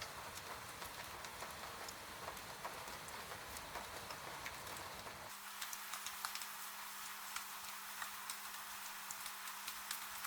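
Rain falling steadily, with scattered crackles from a wood fire. About halfway through the sound changes abruptly: the low rain rumble drops away, leaving sharper fire crackles and pops over a faint steady hum.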